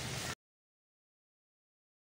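Sugar syrup with roasted vermicelli bubbling and sizzling in a frying pan. It cuts off abruptly about a third of a second in, leaving dead silence.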